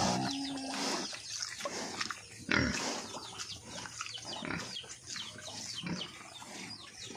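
Pigs grunting, many short calls close together, growing busier from about two and a half seconds in.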